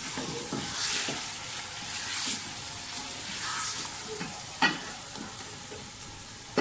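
Wooden spatula stirring and scraping mutton, tomatoes and yogurt in an aluminium pressure cooker, over the sizzle of the meat and masala frying. A sharp knock about two thirds of the way through.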